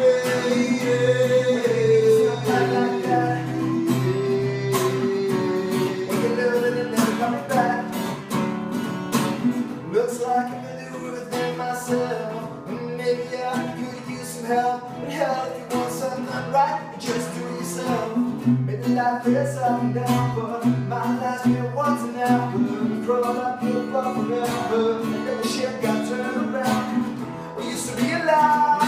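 Acoustic guitar strummed steadily with a voice singing over it. In the first few seconds the singer holds a long note that slides down in pitch.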